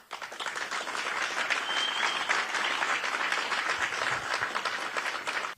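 Rally audience applauding, a dense patter of many hands clapping, with a short high tone about two seconds in. The applause cuts off abruptly at an edit.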